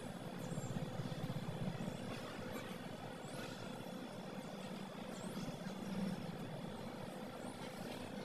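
Steady low background rumble with a faint constant hum and a few faint high chirps.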